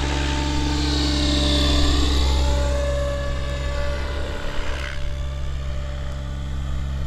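Electric T-REX 700 F3C RC helicopter in flight overhead: the steady whine of its motor and the hum of its spinning main rotor. The sound swells slightly over the first two seconds and eases a little after about five seconds.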